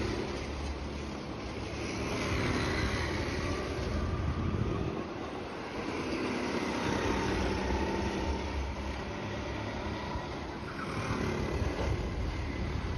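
Several go-kart engines running around the track, their pitch drifting up and down as the karts speed up and slow through the corners, growing louder a couple of times as karts pass close.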